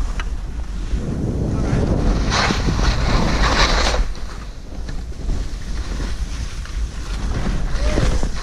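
Skis sliding downhill through snow, with a louder hiss of spraying powder as the skier turns through loose snow between about two and four seconds in. Wind rumbles on the microphone underneath.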